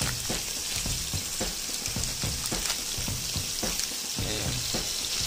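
Carrots, onion and garlic sizzling and crackling in hot oil as they sauté in a pot.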